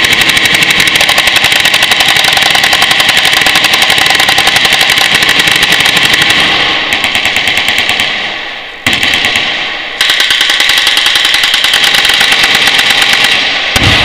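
Machine guns firing full-auto in long unbroken strings, a dense rapid rattle of shots. The fire thins out past the middle, a single sharp bang comes just before the 9-second mark, then full fire starts again and tapers off near the end.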